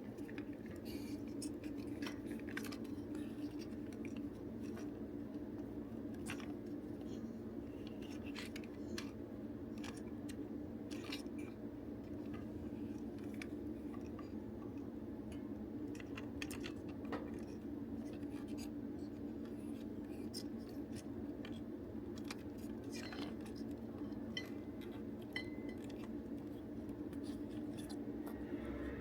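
Scattered small clicks, taps and scrapes of a plastic toy belt's parts being handled and worked apart, over a steady low hum.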